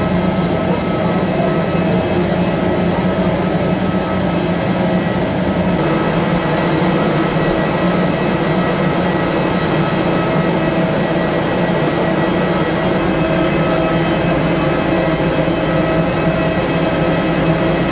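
Steady, loud mechanical drone with a constant whine from aircraft and ground machinery on an airport apron.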